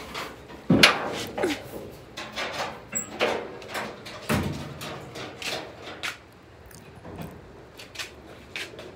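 Irregular metallic clunks and knocks from a Mustang's hood and fender sheet metal being handled and adjusted. The loudest come about a second in and again after four seconds.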